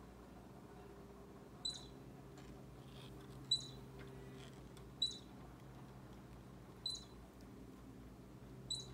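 Baby squirrel squeaking: short, high-pitched squeaks repeated at a steady pace, about one every two seconds, five in all.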